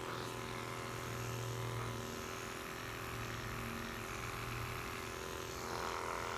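Corded electric pet clippers fitted with a 10 blade, running with a steady buzz as they shave through a Persian cat's long coat.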